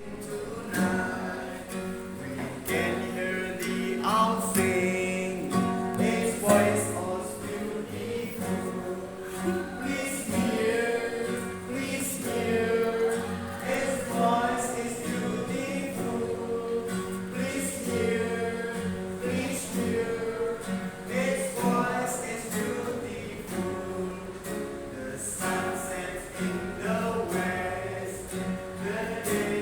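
Music: voices singing a song over instrumental accompaniment, the melody moving in short sung phrases above a steady low note.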